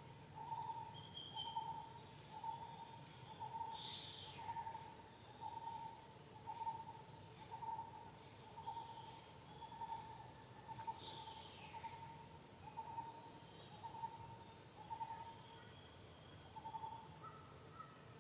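A bird giving a short hooting note over and over, about once a second, stopping shortly before the end. Higher chirps from other birds or insects come and go above it.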